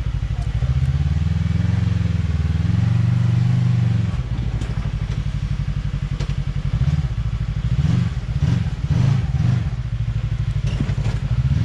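Side-by-side UTV engine running at low revs, rising and easing as it crawls over rocks, with scattered clatter and knocks.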